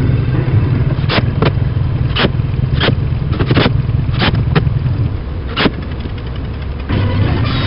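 About nine sharp knocks at uneven intervals over a steady low hum, as in woodworking on a plywood cabinet. The hum eases off briefly near the end of the knocks and then comes back.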